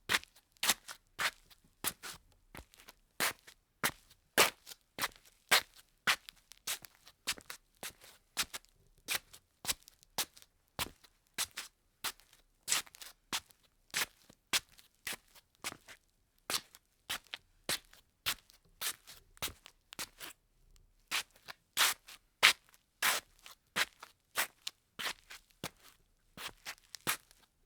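Slippers shuffling on a tile floor: a steady run of short scuffing steps, about two a second, with a brief pause about twenty seconds in.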